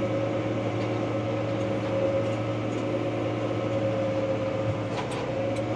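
New Holland T6155 tractor's four-cylinder diesel engine running at steady revs, a constant drone with a few held tones.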